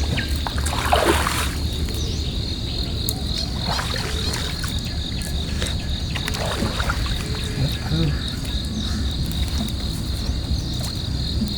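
A steady, evenly pulsing high-pitched chirring of insects from the riverside, over a steady low rumble. A few brief noises stand out, the loudest about a second in.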